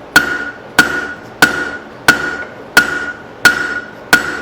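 Blacksmith's big hammer striking leaf-spring steel on an anvil, drawing it out: seven even blows, about three every two seconds, each with a short metallic ring.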